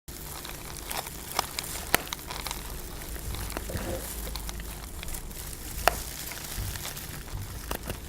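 Scattered sharp crackling clicks over a steady low hum, sound effects made by hand with objects.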